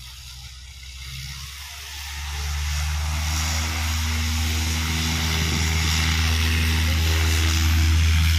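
Piston engine and propeller of a single-engine high-wing light plane moving along the runway. It is a steady low drone that grows louder over the first three seconds as the plane comes closer, then holds.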